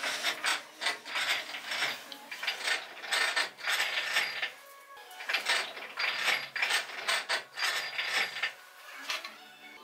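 Metal lathe cutting a small metal part: the turning tool scraping and chips breaking off in a rapid, irregular clatter. There is a brief break a little before halfway, and it is quieter near the end.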